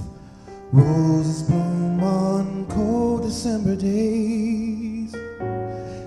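A slow love ballad sung over keyboard accompaniment. After a brief pause near the start, the singer holds long notes with vibrato.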